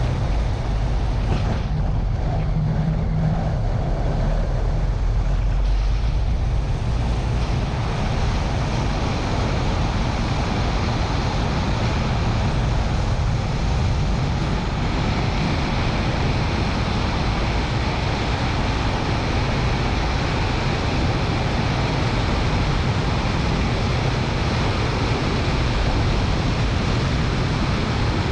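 Car driving on the road, heard through a bonnet-mounted camera: steady wind noise on the microphone mixed with tyre and engine noise.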